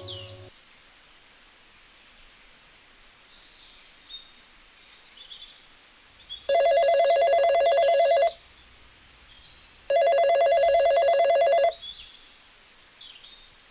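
Mobile phone ringing twice, each ring a trilling tone just under two seconds long with a short pause between. Birds chirp faintly in the background.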